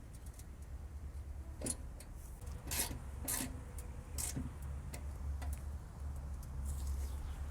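Irregular clicks, taps and light scraping of a hand tool and small metal parts while screws are driven back in with a T40 Torx bit, over a steady low rumble.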